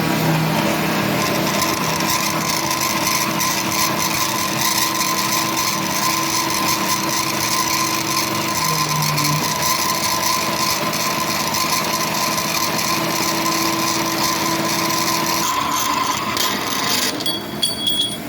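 Bandsaw running and cutting through a piece of steel, a steady loud whir with a constant hum, that stops near the end.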